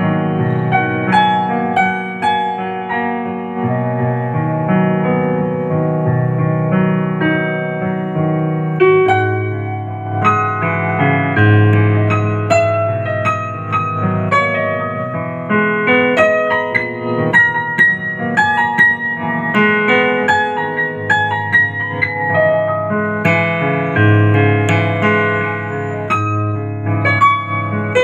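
Digital piano using the Yamaha CFX concert-grand piano voice, playing a solo piece: sustained bass notes under chords and a melody line.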